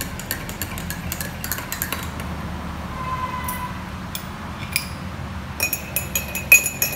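Metal teaspoon clinking against ceramic tea mugs as honey is stirred into the tea: quick clinks for the first two seconds, a few separate taps in the middle, then fast, ringing clinks of stirring near the end.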